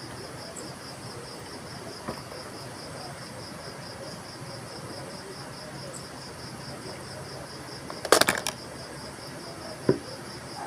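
Insects trilling steadily in a high, evenly pulsing chirr. About eight seconds in comes a quick cluster of sharp knocks or clicks, the loudest sound, and one more knock comes about two seconds later.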